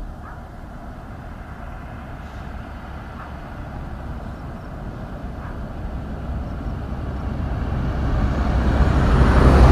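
A road vehicle approaching, growing steadily louder over about ten seconds until it passes close at the very end.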